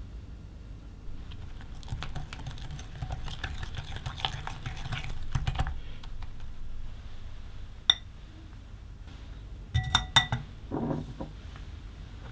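Wire whisk beating creamed butter, sugar and egg yolk in a glass bowl: a dense run of light clicks as the wires tap the glass, stopping about six seconds in. A few sharp clinks and knocks of utensil on glass follow near the end.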